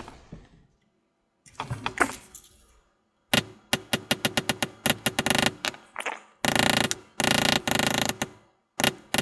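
A small leather backgrounder stamp (a 104-2) struck with a mallet, tapped rapidly in runs of about ten light taps a second to press down the background of tooled leather. The tapping starts about three seconds in, after some soft handling sounds.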